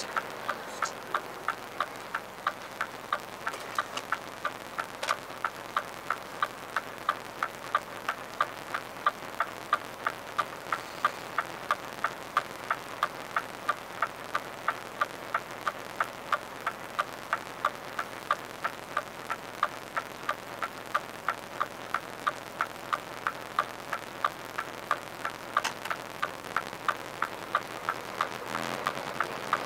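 Turn-signal indicator ticking in the cab of a Scania R450 truck, an even tick about two to three times a second.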